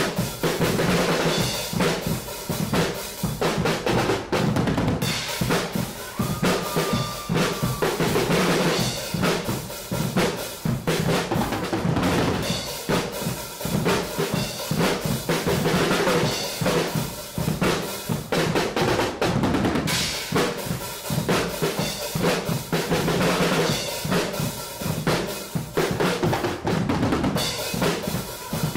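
Guggenmusik drum section playing a dense, loud groove on big bass drums, snare drums and toms without pause.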